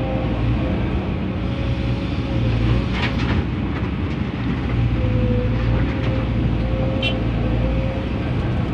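Komatsu PC200-10 hydraulic excavator's diesel engine running steadily under working load, with a steady hydraulic whine over it. Two short clanks come about three seconds in and again near the end.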